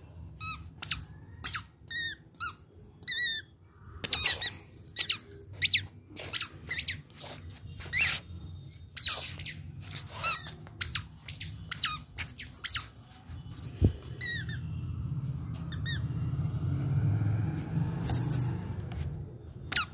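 A toddler's squeaky shoes squeaking with each step: short, high squeaks at an uneven walking pace, fewer of them in the second half.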